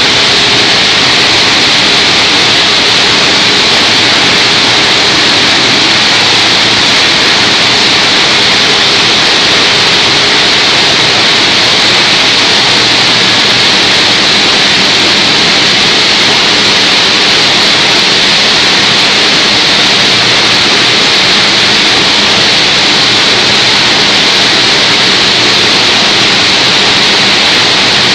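Y81-series hydraulic scrap-metal baler running, its hydraulic power unit making a loud, steady, even noise while a compressed bale of shredded scrap is pushed out.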